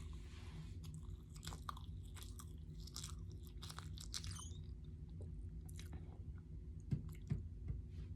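Close-miked chewing and mouth clicks of a person eating soft buttermilk pancakes, busiest in the first half, over a steady low hum. Two soft low thumps come about seven seconds in.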